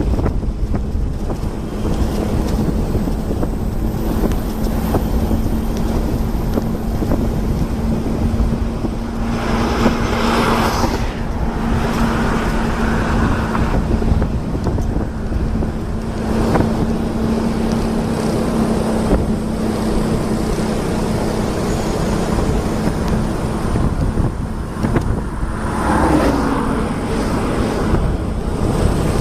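Continuous engine and travel noise of a vehicle under way, with a steady low hum and wind on the microphone. There are short louder rushes of noise at about ten seconds, thirteen seconds and near the end.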